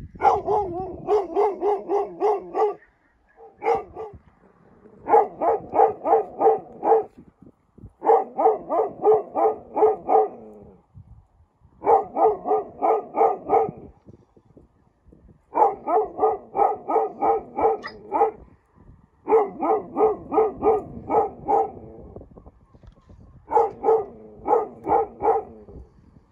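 A dog barking at wild boar in quick runs of about four barks a second, each run lasting about two seconds, with short pauses between runs, over and over.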